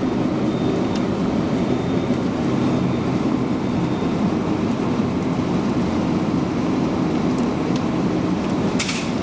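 Steady low rumble of vehicle noise, with one sharp click near the end.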